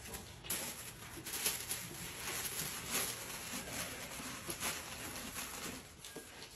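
Thin packing paper rustling and crinkling in irregular strokes as it is pulled off a rolled poster.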